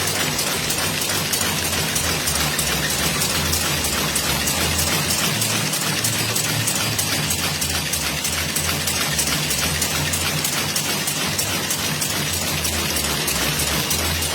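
Cigarette-making machine running steadily: a rapid, even mechanical clatter over a low hum.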